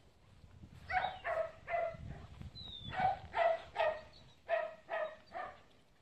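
Dog barking: nine short, high-pitched barks in three quick groups of three.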